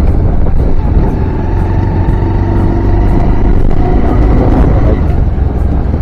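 Bajaj Pulsar motorcycle running steadily as it rides along at about 30 km/h, with heavy low wind rumble on the microphone.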